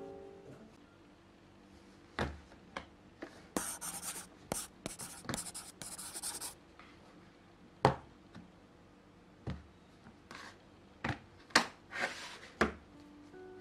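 Hands handling an iPad and its clear plastic case on a wooden desk: a few seconds of rubbing and scraping, then a series of sharp clicks and knocks as the tablet is pressed into and lifted out of the case.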